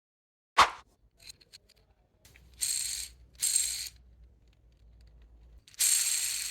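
3D-printed plastic fidget spinner being handled: a sharp click about half a second in, a few light ticks, then two pairs of short rattling whirrs, each under a second, as it is flicked.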